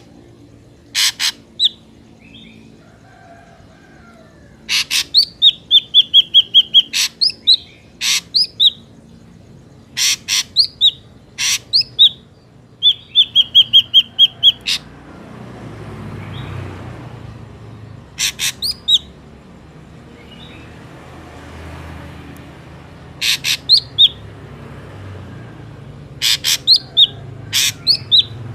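Ashy drongo calls: loud, harsh, clipped notes in clusters of two to five, broken twice by quick runs of repeated whistled notes. The calls thin out for several seconds in the middle, leaving a low background rumble, and then pick up again near the end.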